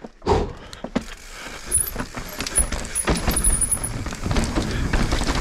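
Mountain bike riding a rough descent over rock and wooden boardwalk: tyres rumbling, with the chain and bike parts rattling and clattering. A high, stuttering squeal comes and goes through the middle.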